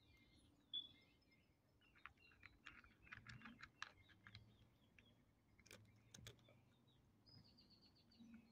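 Cat crunching dry kibble, a quick irregular run of small crunches starting about two seconds in and lasting several seconds. Birds chirp faintly, with one short high chirp about a second in.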